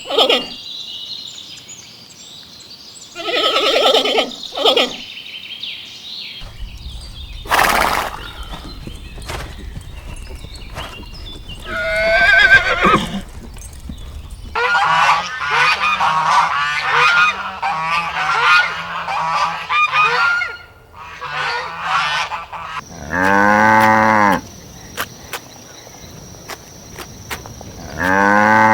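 A string of farm animal calls: a few separate calls, then a long stretch of rapid, crowded calls from many animals at once, then two loud drawn-out calls near the end.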